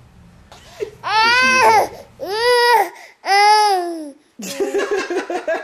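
A baby's high-pitched "ooh" calls: three long ones in a row, each rising and then falling in pitch, followed by choppy voices near the end.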